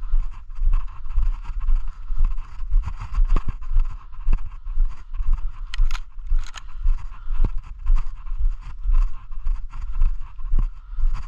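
A person's footsteps walking steadily on soil and grass, heard as low thuds about twice a second, with rubbing and knocking of carried gear close to a body-worn action camera's microphone.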